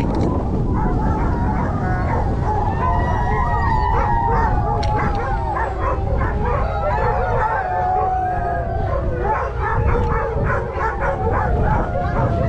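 A chorus of sled dogs howling and yipping together, many long wavering howls overlapping with short yips, over wind rumbling on the microphone.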